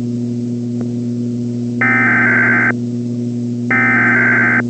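Two bursts of SAME (Specific Area Message Encoding) digital header tones, each a buzzy warbling data squeal just under a second long, about two seconds apart, over a steady low mains hum. This is the coded header that opens a weather radio alert and sets off alert receivers.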